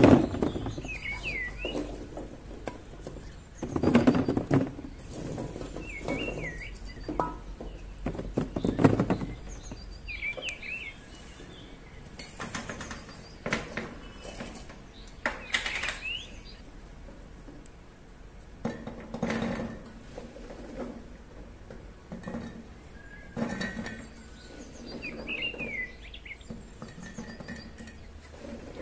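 Dishes and utensils clinking and clattering now and then, with a small bird repeating a short chirp that drops in pitch every few seconds.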